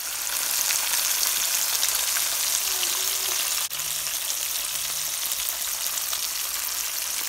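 Flour-coated fish pieces frying in hot oil in a pan: a steady, bright sizzle of bubbling oil, with a momentary break about halfway through.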